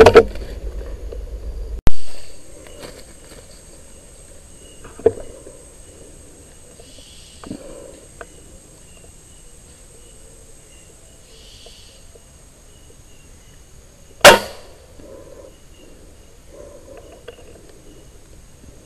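Two air rifle shots, each a sharp loud crack: one about two seconds in and the other about twelve seconds later. A few lighter knocks fall between them.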